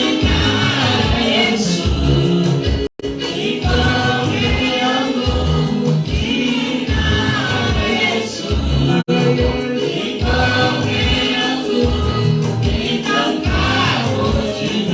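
Gospel worship song sung by a group of voices over a band with a steady, repeating bass beat. The sound cuts out very briefly twice, at about 3 and 9 seconds.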